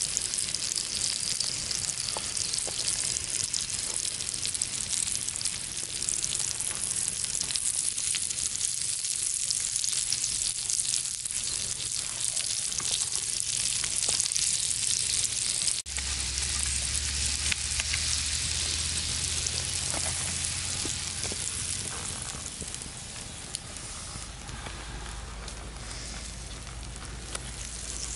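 Sausages sizzling steadily in their fat on a hot flat stone over a wood fire, becoming quieter for the last few seconds.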